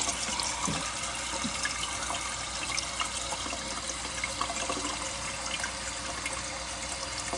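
Water running steadily in a toilet tank, with faint clicks and knocks throughout. The flapper chain is hung up and holds the flapper open, so the water keeps running.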